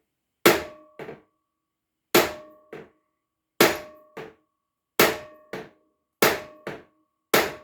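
Hammer blows on the seized piston of a 1952 Scott Atwater 7.5 hp outboard, driving it down to free the stuck engine. Six heavy strikes land about every 1.3 s, each followed by a lighter rebound hit, with a short metallic ring after each.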